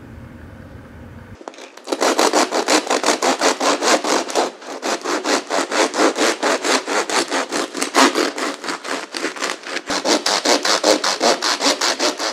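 A knife sawing back and forth through a dense, crusty 100% whole-wheat loaf that is hard to cut, making quick, rhythmic rasping strokes at about four to five a second. It starts about two seconds in and pauses briefly once.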